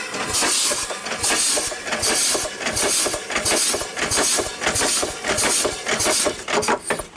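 1880 Payne & Son steam engine running on steam, each stroke giving a hissing chuff, about two a second, with knocks mixed in. Its packing gland is leaking steam, and there is a little rod noise that still needs work.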